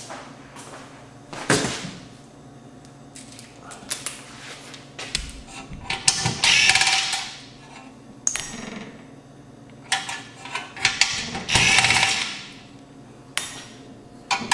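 A cordless drill with a Phillips bit runs in two short bursts, about a second each, driving out screws in the receiver's chassis. Between the bursts come clicks and knocks of metal parts and screws being handled.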